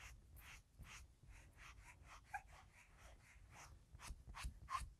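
Faint, rhythmic swishing of a makeup puff patted and rubbed over the cheek with powder foundation, about three strokes a second, a little louder near the end.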